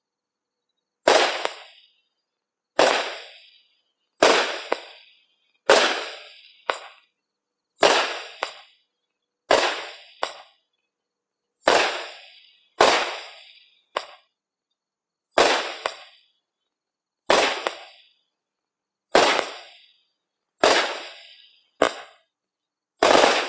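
A "V" 200-gram repeater firework cake firing its shots one after another: about a dozen sharp bangs, each with a fading tail, coming every one and a half to two seconds, several followed closely by a smaller pop.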